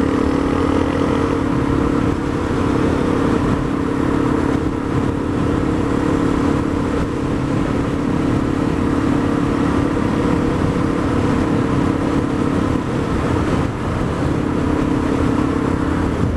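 Single-cylinder Honda CRF dual-sport motorcycle engine running at a steady cruising speed, with wind noise.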